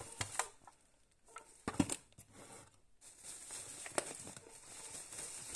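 Grocery packages being handled: faint rustling of plastic packaging and a few light knocks as items are set down.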